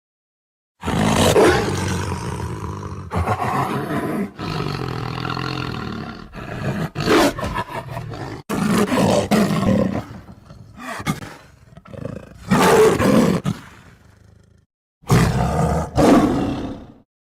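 Lion roaring and growling in a series of rough bursts of varying length, the loudest ones separated by quieter rumbling stretches. The sound cuts to dead silence about a second before it begins and again briefly near the end, as the sound-effect recording restarts.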